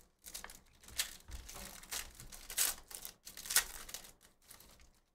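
Foil wrapper of a Panini Phoenix football card pack being torn open and crinkled by hand, an irregular crackling with a few sharp louder crackles.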